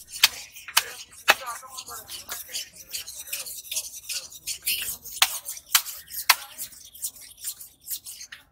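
A knife scraping scales off a large hamour (grouper): quick, irregular scraping strokes with sharp clicks of the blade on the skin, several louder strokes standing out.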